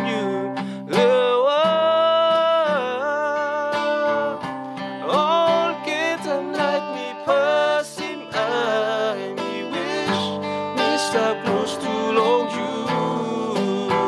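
Acoustic guitar strummed under a man singing a melody with long held notes, with a cajon tapping out the beat.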